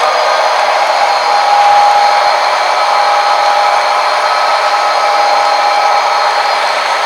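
Model train running on the layout: a steady whirring of the electric motor and wheels on track, with a thin steady whine that grows stronger about a second in.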